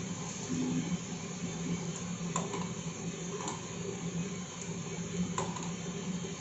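Coffee roasting machine running: a steady motor and fan hum, with a few faint clicks.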